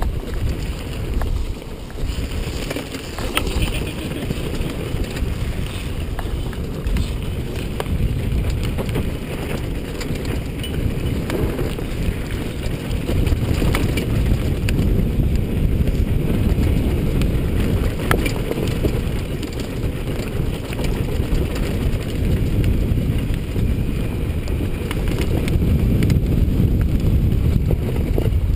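Onboard sound of a Honda CRF450R single-cylinder four-stroke dirt bike riding a rough dirt track, its engine running under heavy wind buffeting on the microphone. A few sharp knocks break through now and then.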